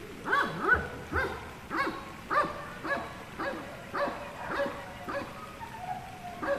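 A puppy yapping over and over: short, high-pitched barks at about two a second.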